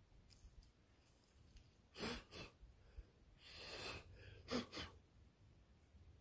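A climber's sharp exhalations of effort: two short puffs about two seconds in, a longer breath out at about three and a half seconds, then two more short puffs.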